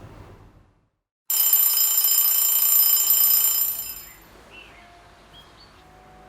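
An alarm ringing loudly, a cluster of steady high tones that cuts in suddenly about a second in after a moment of silence and fades out after about three seconds. Soft music begins near the end.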